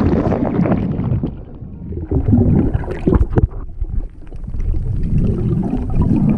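Muffled underwater rumble and gurgling of water moving around a submerged camera while snorkelling, with a few sharp clicks about halfway through.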